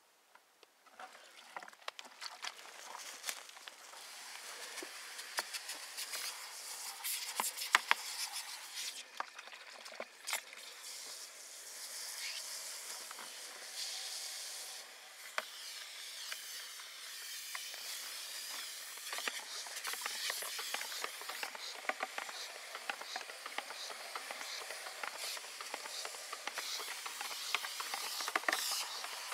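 A brush on a stick churning water and crushed ore in a plastic bucket to whip up froth for gold flotation: a continuous swishing, splashing hiss with scattered sharp ticks, starting about a second in.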